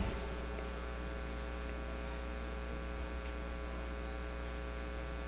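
Steady electrical mains hum from the church's amplified sound system, held unchanged under a quiet room.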